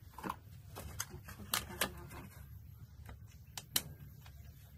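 A scattered series of sharp clicks and taps from a plastic bottle and a small cup being handled, over a steady low rumble.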